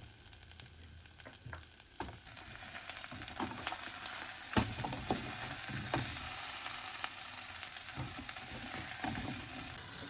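Chopped onions sizzling in olive oil in a pan as they caramelize, with a few sharp knocks as they are stirred; the sizzle gets louder about two seconds in.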